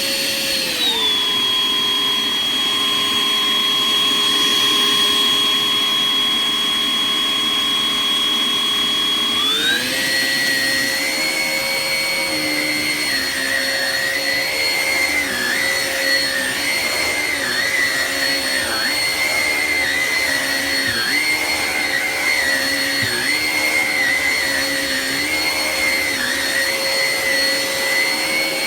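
Hoover ONEPWR Evolve Pet Elite cordless stick vacuum running with a steady motor whine. It drops to a lower speed about a second in, then rises to a higher speed near ten seconds in. After that its pitch keeps wavering and briefly dipping, over and over.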